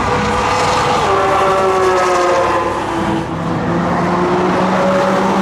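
Porsche sports car engine pulling hard on track, its pitch rising for about three seconds, then dropping sharply with a gear change and pulling on at lower revs.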